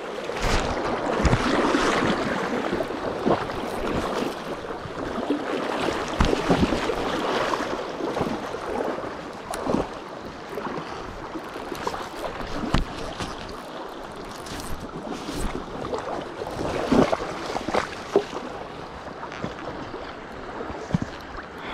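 Rushing river water with wind buffeting the microphone, and scattered sharp clicks and knocks over it.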